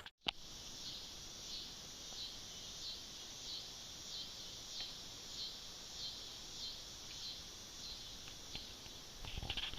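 Insect chorus in the trees, a steady high buzz that pulses evenly about one and a half times a second. A brief faint rustle comes near the end.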